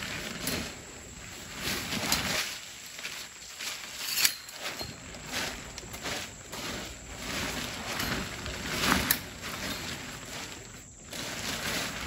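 Nylon tent fabric rustling and its pole frame rattling as the tent is pulled up and spread open on a plastic tarp, in irregular bursts, with a sharp click about four seconds in.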